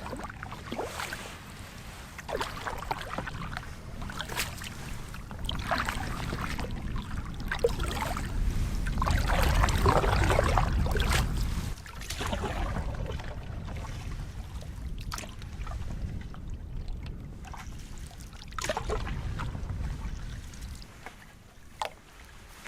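Canoe paddling on a lake: paddle strokes and water splashing against the hull every second or two, under a low wind rumble on the microphone that is loudest about halfway through.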